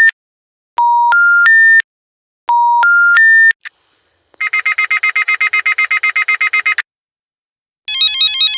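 Telephone network's three-note rising 'special information tone' (the intercept tone before a 'number not in service' message), heard twice in full. Then a telephone's electronic ringer trills rapidly for about two and a half seconds, and a short, higher warbling electronic ring starts near the end.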